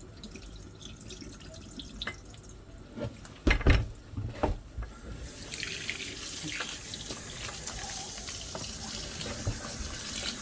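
Kitchen tap turned on and running into a pot of rice for another rinse, the flow starting about halfway through. Before it come a few sharp knocks, the loudest just after three and a half seconds.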